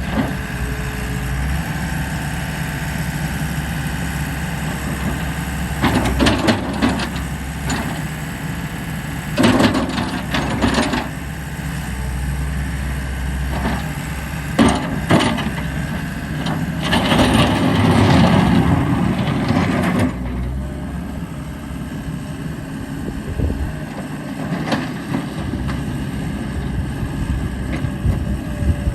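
Gehl 6640 skid steer loader's diesel engine running steadily, with several louder surges lasting a second or a few seconds each; the longest comes about two-thirds of the way through.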